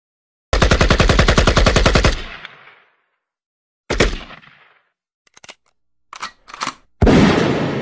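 Gunfire: a rapid burst of automatic fire lasting about a second and a half, then a single shot, a few short clicks, and a heavy boom near the end that rings out long.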